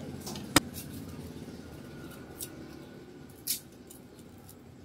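A sharp knock about half a second in, then two short crisp cuts as a kitchen knife slices through a fresh red chili pepper on a plastic cutting board, over a low steady background hum.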